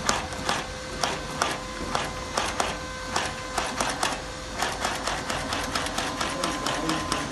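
Shoe-making machine running: a series of sharp mechanical clicks over a steady hum. The clicks come about two to three a second at first and closer together from about halfway.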